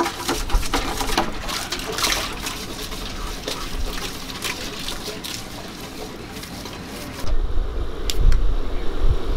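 Dishes washed by hand in a bucket of water: water sloshing and splashing, with sharp clinks of a stainless steel pot and bowl. After about seven seconds it cuts abruptly to a deep low rumble.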